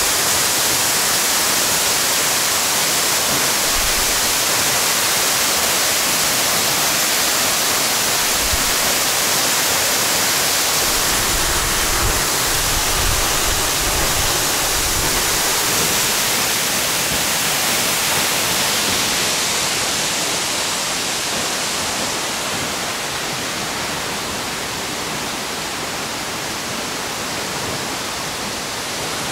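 Steady rush of water from a tall mountain waterfall heard close up, with a few brief low rumbles in the middle; it turns a little quieter and duller about two-thirds of the way through.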